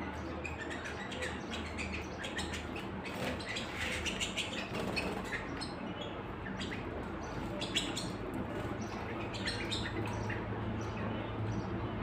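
Several caged canaries chirping in short, sharp high calls scattered throughout, over a steady low background hum.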